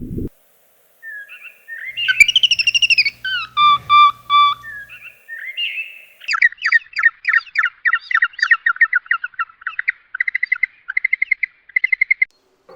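A bird singing: a few varied whistled and warbling notes, then a long run of quick repeated notes, about four a second, that speeds up near the end.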